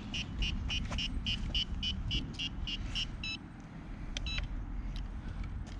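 RC airplane radio gear beeping: a rapid run of short high beeps, about three a second, which stops about three seconds in and is followed by two longer beeps, the pattern of a transmitter and receiver pairing before flight.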